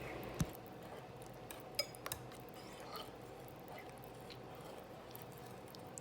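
Wet banana muffin batter of mashed bananas, eggs and melted butter being stirred in a bowl: faint squelching with a few light clinks of the utensil against the bowl.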